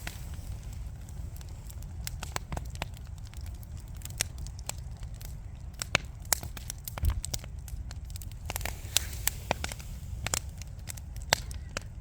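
Wood fire burning in a fireplace: irregular sharp crackles and pops from the burning logs, scattered unevenly, over a steady low rumble of the flames.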